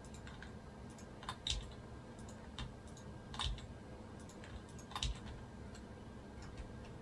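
Faint computer keyboard and mouse clicks: about eight short, separate clicks at uneven spacing, including repeated presses of the F key to fill faces in a 3D model.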